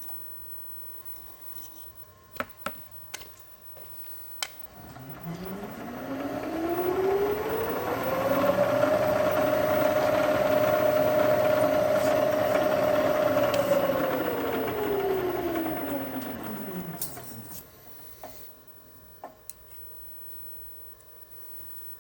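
Milling machine spindle motor starting up, its pitch rising for about four seconds, running steady for about five seconds, then winding down over about three seconds. A few light clicks come before it.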